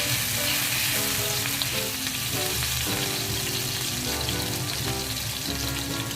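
Minced garlic sizzling as it fries in hot oil in a pan, a steady hiss, with background music under it.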